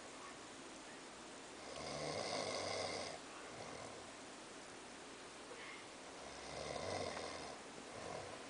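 A sleeping person snoring: two drawn-out snores about four and a half seconds apart, each lasting a second or so, with a shorter, fainter one near the end.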